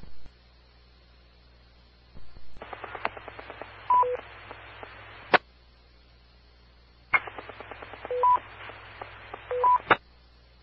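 Amateur radio repeater audio: twice the channel opens to hiss and a rapid clicking without voice, each time with short two-note beeps (about 500 Hz and 1 kHz), then a sharp squelch click closes it. The beeps are of the kind a linked repeater system sends as courtesy tones.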